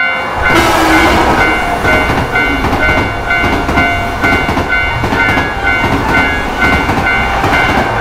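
A train passing through a railroad crossing, its noise sweeping in about half a second in and staying loud. Over it, the crossing's warning bell rings in a steady, rapid repeating ding.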